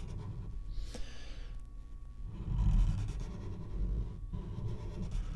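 A person breathing audibly, with a sharp intake of breath about a second in, over a steady low rumble.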